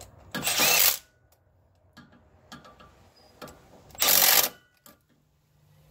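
Ratchet wrench clicking in two short, rapid bursts, about half a second in and again about four seconds in, as axle-shaft flange bolts are run in. Light metallic ticks and clinks of bolts and tool come between the bursts.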